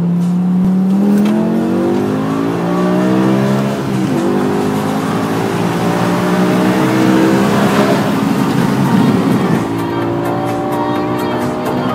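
BMW M5's V10 engine under full-throttle acceleration, heard inside the cabin. The engine note climbs steadily in pitch, drops with an upshift about 4 s in and again near 10 s, then climbs again.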